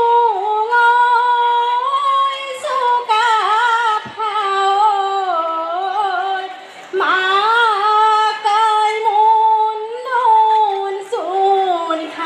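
A woman singing a slow song for a Tai dance, in four long phrases of held, wavering notes, with little or no instrumental backing.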